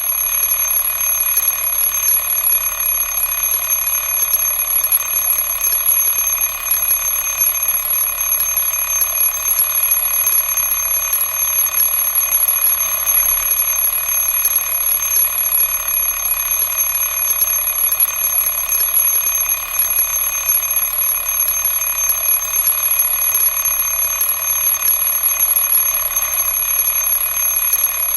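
Alarm clock ringing loudly and continuously, a steady high-pitched ring with no pauses.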